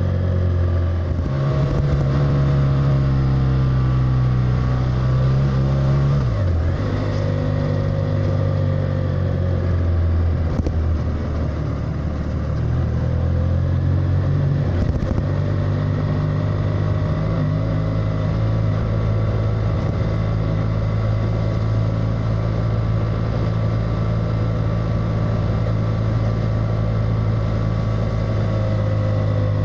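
BMW F800R's parallel-twin engine running under way, its note shifting up and down with throttle and gear changes through the bends, dropping sharply about six seconds in, over steady wind noise.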